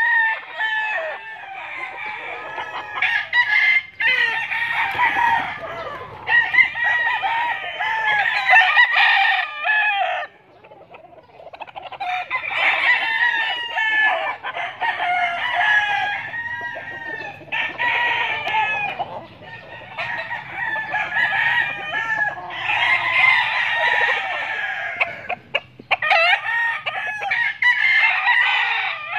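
Gamecocks crowing and clucking, their calls overlapping almost without pause, with a short lull about ten seconds in.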